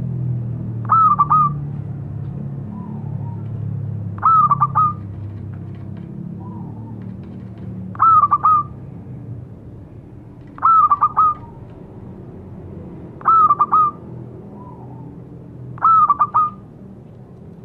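Zebra dove (perkutut) cooing: six short, bright phrases of quick notes, one every two and a half to three seconds, with fainter, lower short calls in between. A low rumble in the background fades over the first few seconds.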